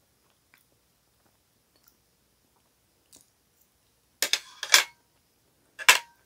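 A metal fork clattering on a plate in two short bursts, the first about four seconds in and the second near the end, each leaving a brief ring. Faint clicks of cutlery and food handling come before them.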